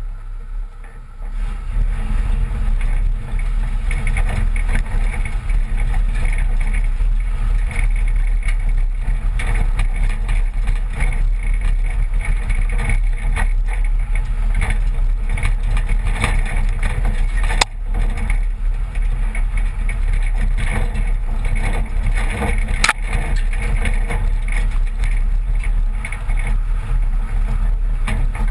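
Driving noise of a 1986 Toyota pickup with a 22R four-cylinder engine, heard from outside beside the front wheel: the engine running with tyres rolling over a rough gravel track and wind buffeting the microphone. The sound is quieter for the first second or two, and two sharp knocks stand out in the second half.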